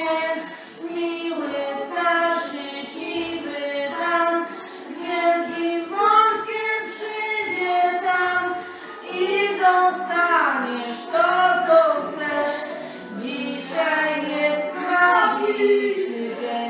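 A young female voice singing a song, holding long notes.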